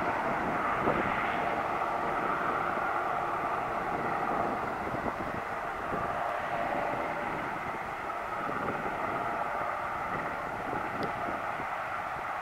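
Westland Sea King Mk41 twin-turbine helicopter hovering with an underslung load, its turbines and rotor giving a steady rushing drone.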